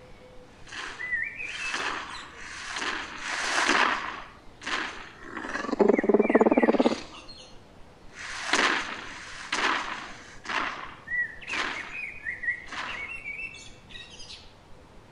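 Cartoon Carnotaurus's sniffing sound effects: a string of short noisy sniffs, with one loud buzzy grunt about six seconds in. Birds chirp now and then over them.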